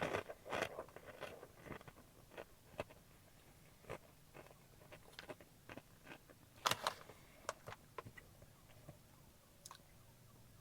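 Crunching and chewing of Doritos tortilla chips, a run of sharp crisp crunches, densest in the first second, sparser after, with a loud pair of crunches about seven seconds in.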